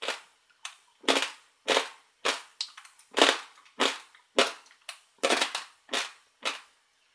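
Dry uncooked pasta being chewed with the mouth closed: loud crunches, a little under two a second, each sharp and quickly fading.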